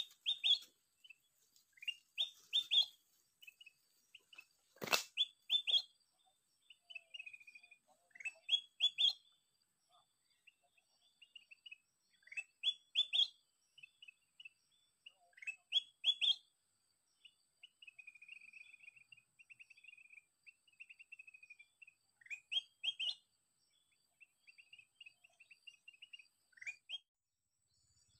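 Kutilang emas (golden bulbul) calls: short rising whistled phrases repeated every few seconds, with a longer trill in the middle. A single sharp click about five seconds in.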